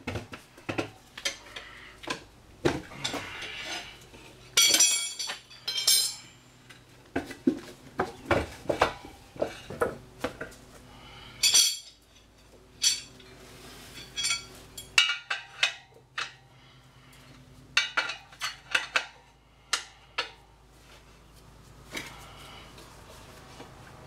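Steel tire irons clinking, scraping and knocking against a motorcycle wheel rim as an old tire is levered off: an irregular string of sharp metallic clanks.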